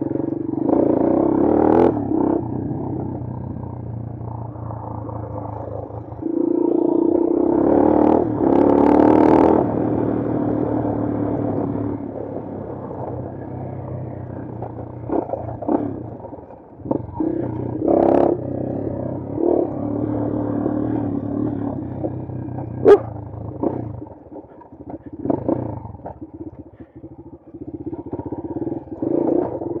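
Bashan Brozz 250 dual-sport motorcycle engine on a trail ride, its pitch and loudness rising and falling as the throttle is opened and closed, with scattered knocks and clatter. A single sharp knock stands out about 23 seconds in.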